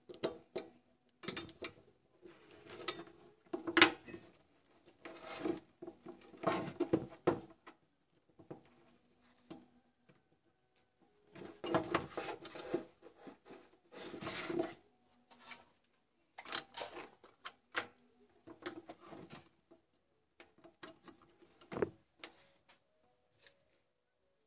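Handling noise from an open computer power supply: wire bundles rustling and scraping against the circuit board and steel casing, with irregular clicks and knocks in bursts and short pauses.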